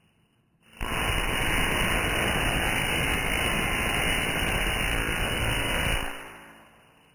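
Tesla coil firing, its sparks making a loud, harsh, buzzing crackle. The sound starts abruptly about a second in, holds steady for about five seconds, then dies away.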